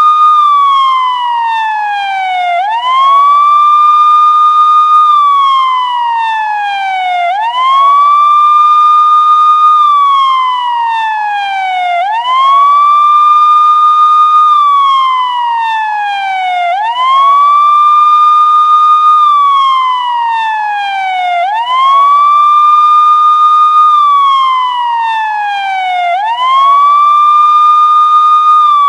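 Loud police siren on a slow wail: each cycle sweeps quickly up to a high note, holds it for about two seconds, then slides slowly back down, repeating about every four and a half seconds.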